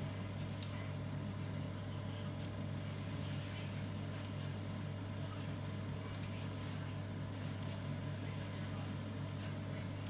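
A steady low hum, machine-like and unchanging, with a few faint ticks and rustles over it.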